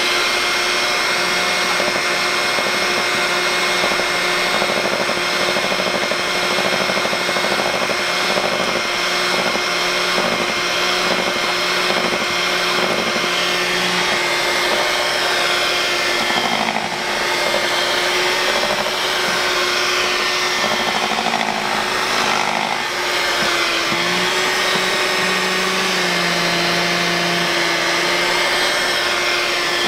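Electric hand mixer running steadily with a constant whine, its beaters churning a thick chocolate-and-cream truffle mixture in a stainless steel bowl.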